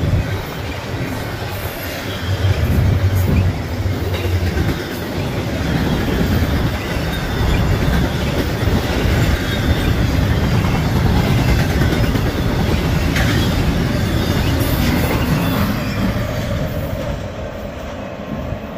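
BNSF double-stack intermodal freight train's well cars rolling past: a steady rumble and rattle of steel wheels on the rails, easing off near the end.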